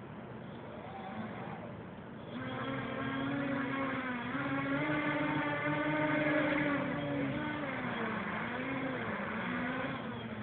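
The four Emax 2220 brushless motors and 8x4.5 propellers of a home-built quadcopter flying saucer spin up about two seconds in, making a steady motor hum. Its pitch climbs a little and holds, then wavers up and down near the end.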